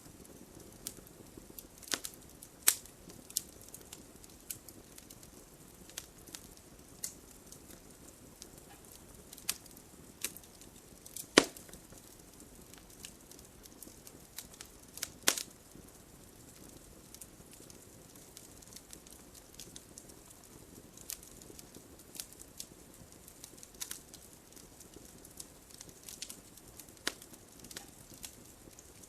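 Campfire crackling: irregular sharp pops and snaps of burning wood over a soft steady hiss. A few louder pops stand out in the first half.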